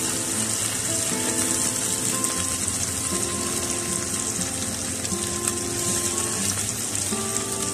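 Chicken legs shallow-frying in oil in an open nonstick pan: a steady, high sizzle as they brown and crisp on both sides. Soft background music with held notes plays underneath.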